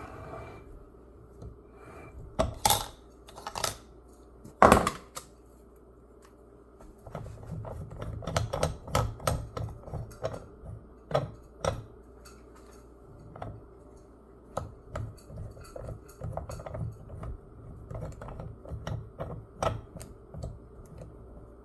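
Stainless steel fractal vise being handled, its loose metal parts clinking and clacking against each other. Two louder knocks come within the first five seconds, then a long run of lighter clinks.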